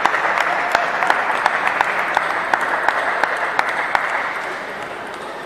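Spectators applauding, dense clapping that dies away about four and a half seconds in.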